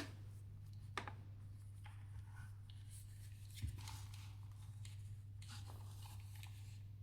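Over-ear DJ headphones being handled: soft rubbing and scratching with two sharp clicks, about a second in and again midway, over a steady low hum.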